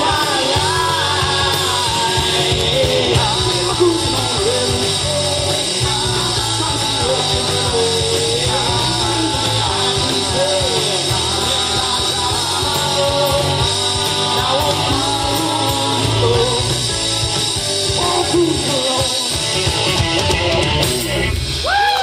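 Live rock band playing a song: electric guitar, bass guitar, drums and keyboard, with a male lead vocal singing over them.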